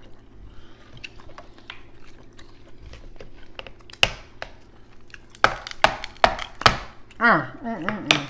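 Close-up eating sounds: faint chewing and mouth clicks, then from about four seconds in a run of sharp cracks and snaps as king crab leg shells are broken open by hand. A brief vocal sound comes near the end.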